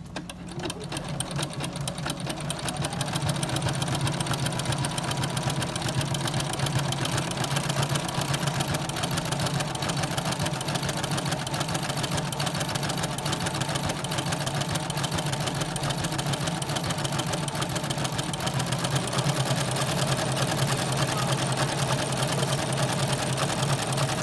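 Domestic electronic sewing machine stitching an overcast stitch along a denim edge at moderate speed, through an overlock presser foot whose built-in blade trims the fabric as it sews. The rapid, even clatter of the needle mechanism builds up over the first few seconds and then runs steadily.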